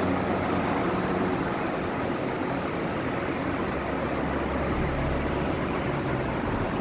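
Prefix double 70-litre evaporative air cooler running: its fans give a steady rush of air over a low motor hum.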